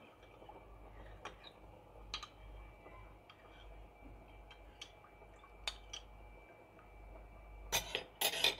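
Kitchen handling sounds: a spoon and a ceramic bowl clicking against each other now and then, with two louder clatters near the end as the bowl is picked up.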